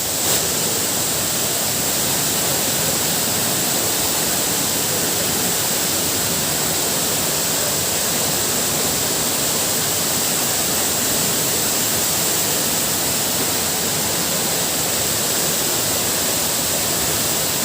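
Water of the Ermai Falls waterfall rushing in a steady, even noise.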